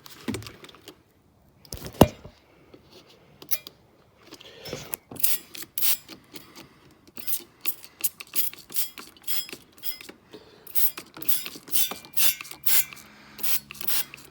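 Repeated short scrubbing strokes by hand, coming faster in the second half at about two or three a second, with one sharp knock about two seconds in.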